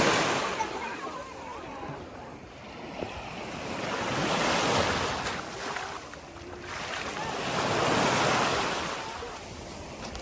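Sea waves washing onto the shore, the surf swelling and fading about every three to four seconds.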